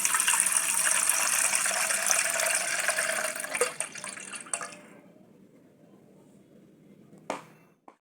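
A steady stream of liquid running or pouring that trails off about five seconds in, followed by a single sharp click near the end.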